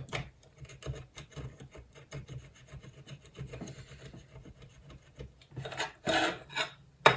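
Soldering iron tip scraping and rubbing across a mobile phone circuit board in quick, irregular strokes, working the gold-plated contact pads loose. A louder run of scraping comes near the end, then a sharp click.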